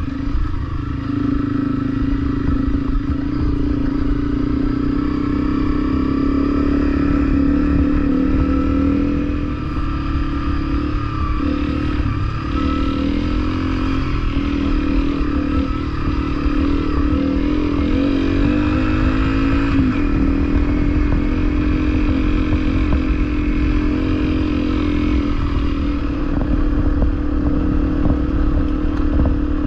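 Honda CRF250L single-cylinder four-stroke engine running as the bike is ridden along a rough dirt trail, its pitch rising and falling with the throttle and gear changes, most of all in the middle stretch, over a steady low rumble.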